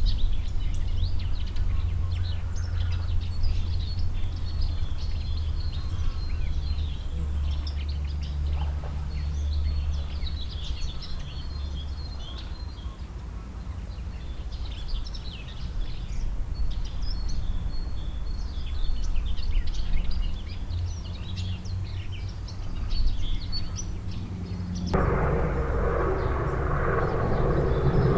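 Birds chirping and twittering over a steady low rumble. About 25 seconds in, a louder, fuller noise sets in underneath.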